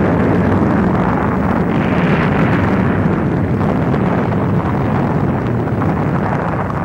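Loud, steady deep rumble of Mount Etna's crater venting smoke and steam, swelling slightly about two seconds in.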